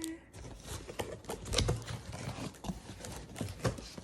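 Irregular clicks, knocks and scrapes of a taped cardboard box and its packaging being handled and pulled open.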